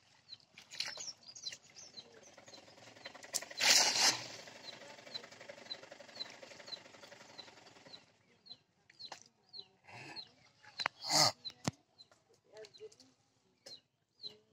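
A hand-thrown cast net swishes and splashes onto pond water about four seconds in, with another splash a few seconds before the end as the wet net is lifted out. A small bird chirps over it, about twice a second.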